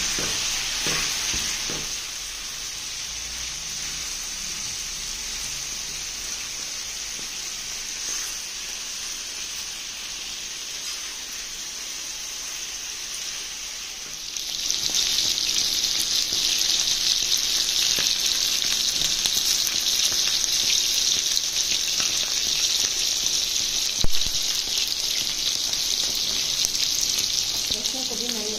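Chicken pieces and chopped garlic sizzling in oil on a tawa griddle, a steady hiss that grows louder about halfway through. There is a single sharp tap near the end.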